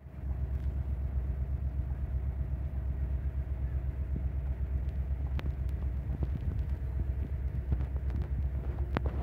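An engine idling: a steady, pulsing low rumble with a faint steady hum above it. A couple of light clicks come through, about five seconds in and again near the end.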